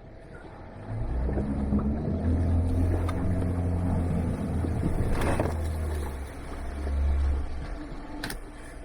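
Off-road vehicle's engine working hard as it drives through a deep water hole, water splashing and sloshing around it. It gets louder about a second in, with a big splash about halfway through. The hole's bottom is soft, with no gravel.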